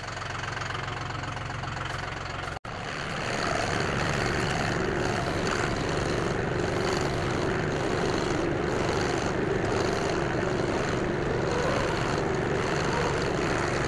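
Vehicle engine running steadily. It drops out for an instant about two and a half seconds in, then runs on louder.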